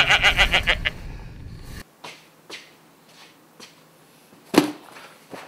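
A rapid rattling pulse lasting about a second. Then light handling taps and one sharp thump about four and a half seconds in as a cardboard parcel is set down on a table.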